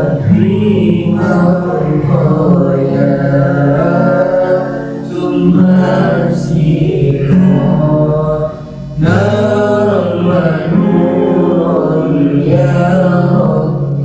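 A voice singing a sholawat, Islamic devotional song, in long sustained phrases with pitch bends, over a steady low accompaniment. The singing pauses briefly about five seconds in and again near nine seconds.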